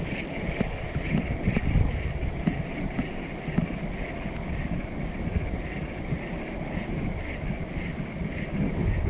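Wind buffeting the microphone in uneven gusts, with a steady high-pitched whine underneath.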